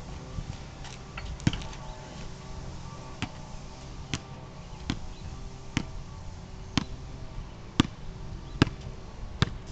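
Basketball being dribbled on a paved driveway: sharp single bounces, about one a second.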